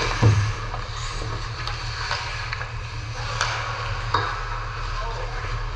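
Sharp clacks of hockey sticks and puck on ice, several at irregular moments, the loudest just after the start, over a steady low hum and faint voices.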